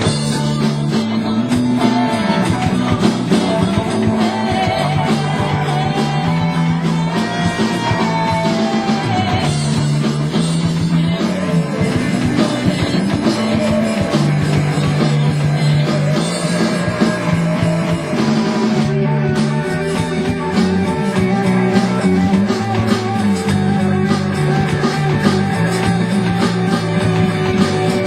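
Rock band playing a song live, guitar over a bass line and drums.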